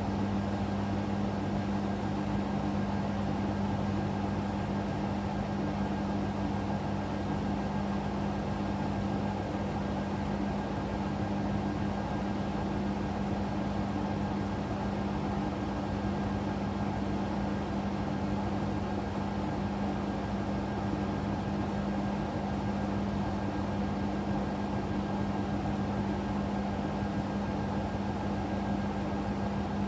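Hoover Sudslock washing machine on its final spin, the drum turning at a steady speed: an even hum with a steady low tone over a rushing noise, unchanging throughout.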